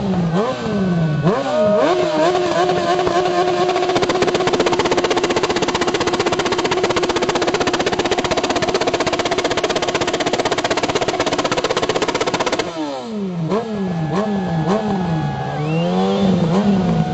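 A loud exhaust note from an engine revved in quick blips, then held at a steady high pitch for about ten seconds. After a sudden change near the end, an engine is blipped rapidly again, rising and falling about twice a second.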